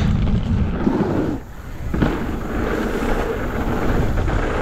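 Wind rushing over the microphone and trail noise from a Cube Two15 downhill mountain bike descending at speed. About a second and a half in, the noise drops briefly, then a sharp knock comes back in.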